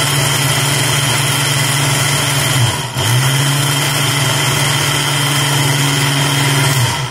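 Countertop blender with a glass jar running steadily on liquid stock, mixing in xanthan gum and agar-agar. The motor cuts out for a moment about three seconds in, runs again, and stops near the end.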